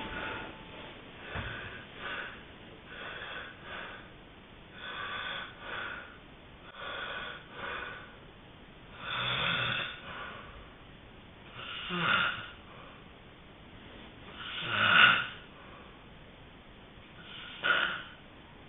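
A person snoring in sleep: a run of short, quick snores about once a second, then slower, louder snores every two to three seconds, the loudest near the end.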